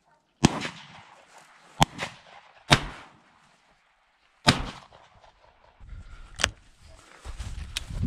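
Shotgun shots: about six sharp reports over eight seconds, the first four loudest and one close behind another, each with a short echoing tail.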